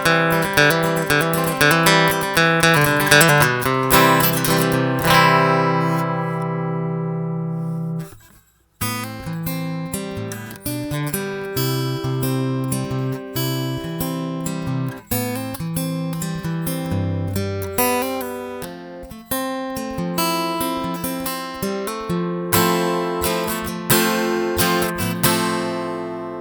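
Takamine EF-349 dreadnought acoustic-electric guitar played plugged in through its pickup, a run of picked and strummed chords. About a third of the way in a chord is left to ring out, there is a short break, then the playing resumes and ends on a chord that rings out and fades.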